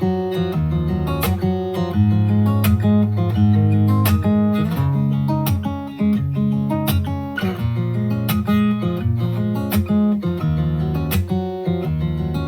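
Acoustic guitar music, strummed chords over a steady bass line, played back through a JBL portable Bluetooth speaker in a sound test. The level dips briefly about six seconds in, then the music carries on.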